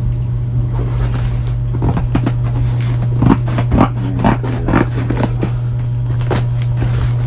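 Cardboard box being handled and pulled open, with scraping, crackling rustles of cardboard and packing that come in quick strokes from about two seconds in, over a steady low hum.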